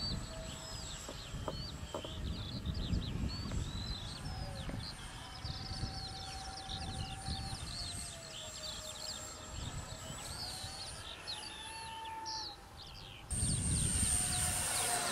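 A small electric ducted fan on an RC model jet whining in flight, its pitch slowly drifting up and down as the jet moves around the sky, and swelling louder about 13 seconds in as the jet passes low. Birds chirp throughout, over a low rumble of wind on the microphone.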